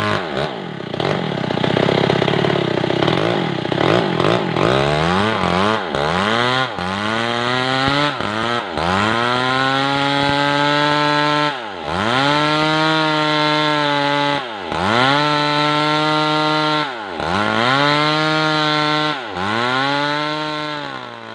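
Stihl MS 381 two-stroke chainsaw rip-cutting a weru log lengthwise. It runs rough under load for the first few seconds, then holds high revs, with the engine speed dipping and recovering every two to three seconds.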